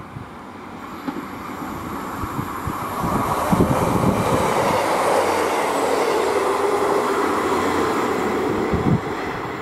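Class 156 Super Sprinter diesel multiple unit approaching on the line, its underfloor Cummins diesel engines and wheels on the rails growing louder about three seconds in and staying loud until a sudden drop near the end.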